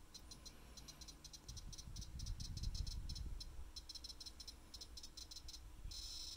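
Rapid runs of small, sharp clicks from the rotary knob of a toy microwave's timer controller as it is turned step by step, each click one step of the timer setting. The clicks come in irregular bursts, with a denser run near the end.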